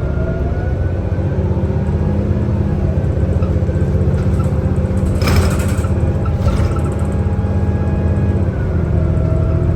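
Cummins ISL9 diesel engine and Allison B500R transmission of a 2011 New Flyer D60LFR articulated bus running, heard from inside the bus: a steady low drone with faint whining tones that slide slowly in pitch. A short hiss cuts in about five seconds in.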